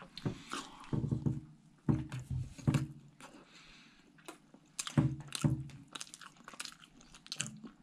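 A person biting and chewing a soft cream-filled sweet bun close to the microphone, with irregular wet mouth clicks and smacks, busier in the first half and again about five seconds in.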